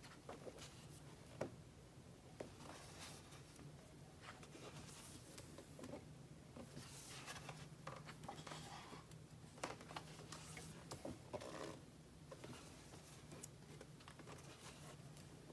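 Faint rustling and flicking of a thick photo magazine's glossy pages as they are turned one after another, with small taps. The sounds come thickest in the middle, over a steady low hum.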